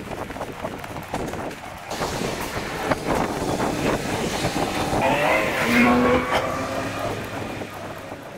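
A car passing on the street, growing louder to a peak about six seconds in and then fading, over footsteps on the pavement.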